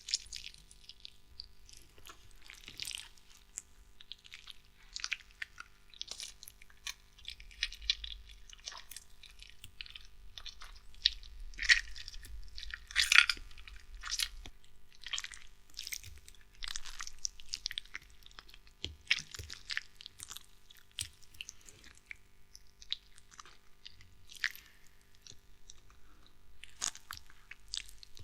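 Horror foley of an organ being handled: irregular wet squelching and crackling, short squishes and crunches coming and going, busiest around the middle.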